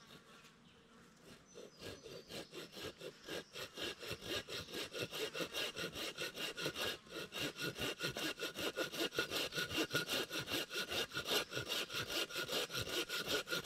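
Hand saw cutting into a piece of wood with quick, even back-and-forth strokes, several a second, starting faint about a second in and building to a steady rhythm. It is a stop cut sawn down to a marked depth, so that wood can then be split off to that point with a knife.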